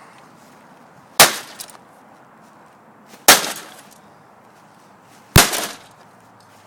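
Three loud, sharp blows about two seconds apart, each with a brief rattle after, struck against a stubborn part of a printer being taken apart.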